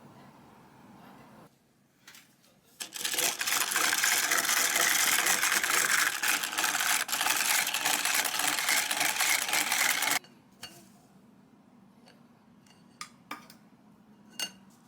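A small electric kitchen appliance running steadily for about seven seconds, then cutting off suddenly, followed by a few light clicks.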